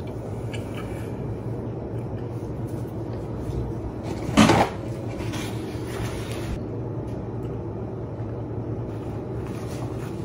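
A steady low hum, with a single short, sharp knock about four and a half seconds in.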